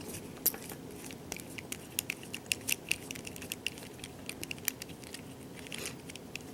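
Light, irregular metallic clicks and taps from handling an American Lock 5200 padlock while taking it apart to get at its core.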